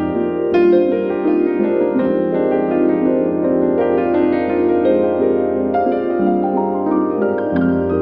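Calm ambient music: soft piano-like keyboard notes over sustained pads and a held bass note.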